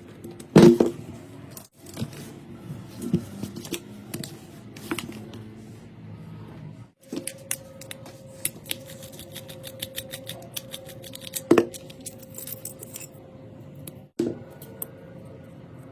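Hand tools and small metal parts clicking, tapping and clinking during handwork on an electric drill's cord. A sharp knock comes about half a second in and another around the middle, with a quick patter of small clicks in between.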